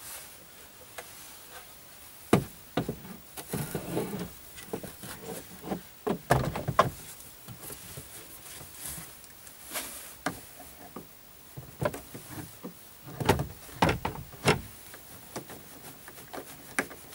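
Wooden window storage unit being set into a van's rear window recess and fitted: irregular knocks and clunks of wood against the interior trim, in clusters with quiet gaps between.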